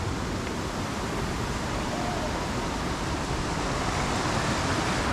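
Steady rushing of stream water flowing over rocks, an even hiss-like roar with no separate events.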